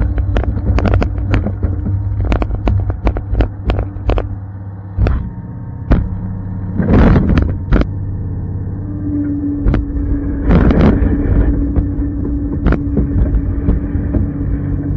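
1998 Bombardier BR-160 snowcat running steadily under load while pushing through deep snow, with many sharp knocks and clatters over the engine hum. Two louder rushes of noise come about seven and ten and a half seconds in.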